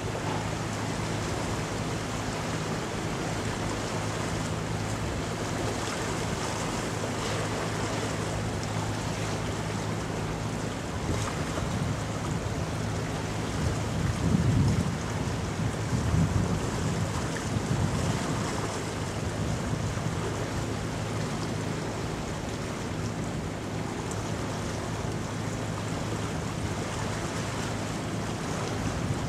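Steady low drone of a passing container ship, with wind gusting on the microphone about halfway through and the wash of water.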